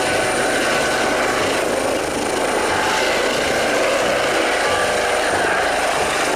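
Eurocopter EC135 air ambulance helicopter hovering low, its rotor and twin turbines making a steady dense rushing noise with a high whine on top.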